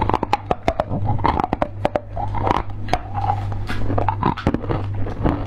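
Close-miked chewing and mouth sounds: a rapid, irregular run of wet clicks and lip smacks as a soft sweet is bitten off a skewer and chewed, over a steady low hum.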